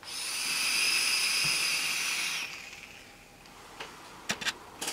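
Draw on a VandyVape Kylin Mini single-coil rebuildable tank atomizer with its airflow partly closed: air hissing through the airflow slots with a high whistle, for about two and a half seconds, then fading. A few small clicks follow near the end.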